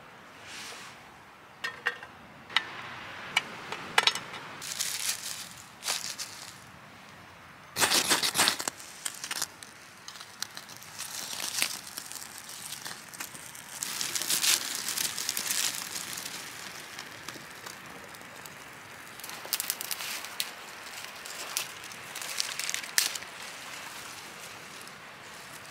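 Sharp little clicks and squelches of a small knife cutting open rosehips, then a loud scrape about eight seconds in. After that, dry wood shavings and thin twigs crackle and rustle as a small campfire catches and is built up with twigs.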